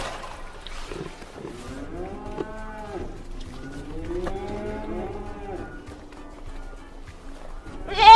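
Cattle mooing: several long calls overlapping, each rising and then falling in pitch.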